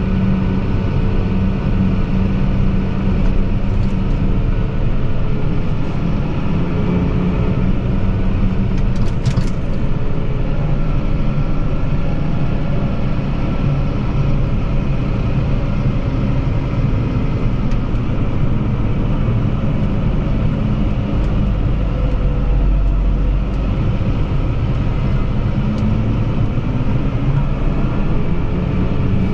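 Fendt 724 Vario tractor's six-cylinder diesel engine running steadily under way, a low even drone heard from inside the cab.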